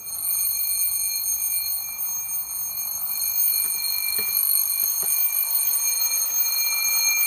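Alarm clock ringing loudly and continuously, a steady high-pitched ring that jumps up in loudness right at the start.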